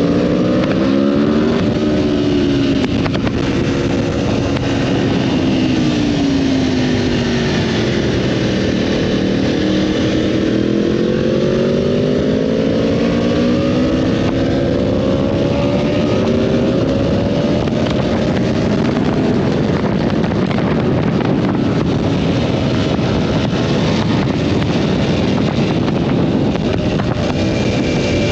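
Sport motorcycle engine running at road speed, its note falling and rising several times as the throttle is eased and opened, under a steady rush of wind on the microphone.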